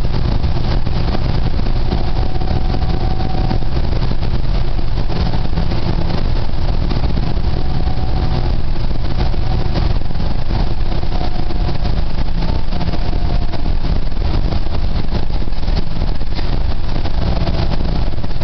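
Interior noise of a New Flyer DE60LFR articulated diesel-electric hybrid bus under way: the Cummins ISL diesel with its Allison EP50 hybrid drive running steadily under road noise, with a faint whine that comes and goes.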